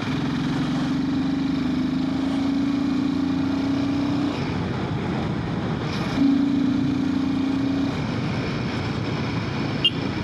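Royal Enfield Himalayan 450's single-cylinder engine running under way over a steady rush of wind and road noise. Its note climbs slowly for about four seconds, drops away, then holds again for a second or two a little after six seconds.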